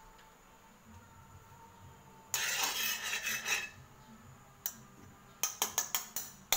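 A metal slotted spatula scrapes across the inside of an aluminium wok for about a second. A little later it knocks against the pan in a quick run of sharp metallic clinks.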